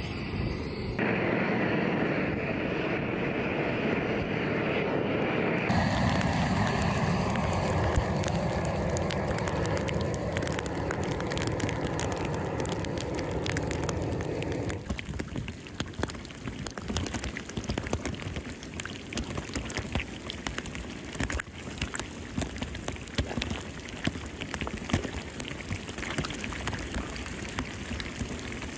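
Gas burner roaring steadily for the first half. About halfway through, the roar gives way to a dense crackle and spatter as molten lead pours from a steel pipe into a concrete keel mold.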